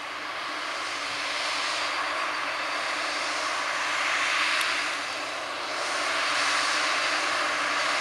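Fendt 939 Vario tractor's six-cylinder diesel engine running under load while pulling a Krone BiGPack big square baler through straw: a steady mechanical drone mixed with the baler's running noise, growing louder over the first second or two as the outfit comes closer.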